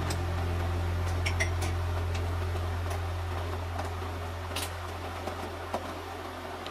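Pasta boiling in a pan of water: a bubbling hiss with scattered small pops, over a low steady hum that slowly fades.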